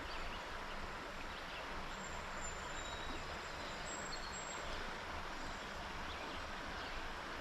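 Steady rush of creek water flowing, with faint high chirps twice.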